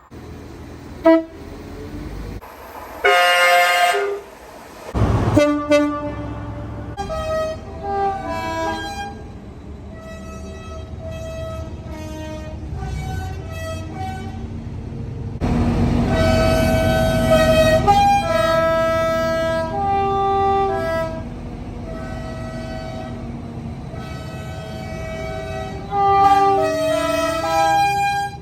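Two-tone train horns sounding a series of blasts that alternate between a higher and a lower note. A heavy low rumble of a passing train runs under them from about the middle.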